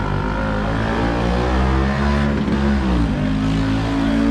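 Small three-wheeled utility truck's engine running as it drives past, its pitch climbing, dropping about three seconds in, then holding steady.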